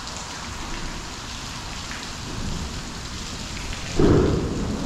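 Steady rushing outdoor noise over open water, then a loud low rumble that starts suddenly about four seconds in.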